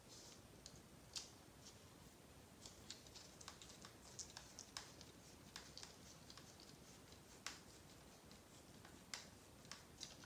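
Faint, irregular small clicks and ticks of a hex driver and screw working in a plastic RC buggy transmission case as a 12 mm screw is driven in.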